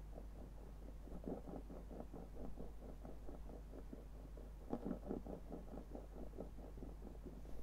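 A lens rocking on a hard surface: a faint, quick run of small knocks and rattles over a steady low hum.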